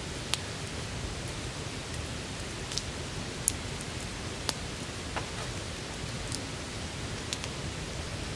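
Wood fire burning in a metal campfire stand: a steady hiss with about seven sharp crackling pops at uneven intervals, the loudest about three and a half seconds in.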